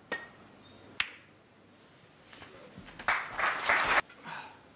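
Snooker balls struck at the break-off: a sharp click of cue on ball about a second in, followed about two seconds later by a louder, second-long rush of noise that stops abruptly.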